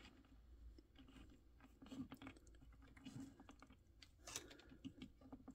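Near silence with a few faint, scattered clicks and taps of a plastic Can-Cell action figure being handled and posed on a wooden tabletop.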